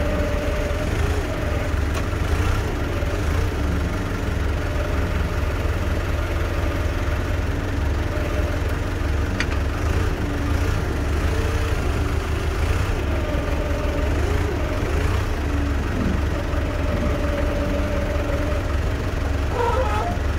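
An engine running steadily, with a strong low drone and a mid-pitched hum that wavers slightly in pitch a few times.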